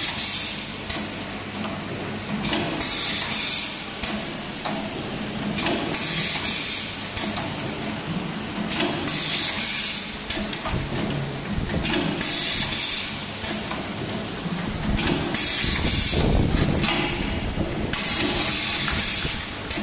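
3D CNC wire bending machine running its bending cycle on steel wire: a steady mechanical din with a short burst of high hiss about every three seconds as each bend or part repeats.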